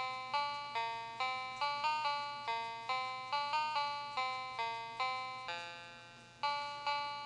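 Citizen chicken alarm clock playing back its user-programmed melody: a run of electronic beeping notes, about two or three a second, each starting sharply and fading, with one longer note about three quarters of the way through.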